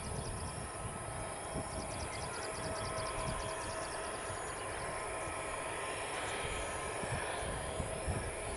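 Airbus A320's CFM56 turbofan engines running at low power as the jet taxis, a steady whine over a low rumble. A rapid high ticking sounds at the start and again about two seconds in.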